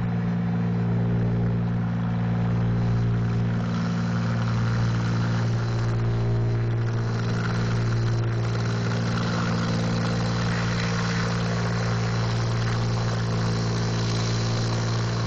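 John Deere 4020 tractor engine running hard at a steady pitch under heavy load as it pulls a weight sled down the pulling track.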